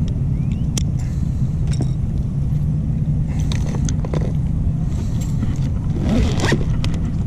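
A steady low rumble, with light metallic clicks and rustles from fishing pliers working a blade-bait lure and hands in a fabric tackle bag; the handling is loudest about six seconds in.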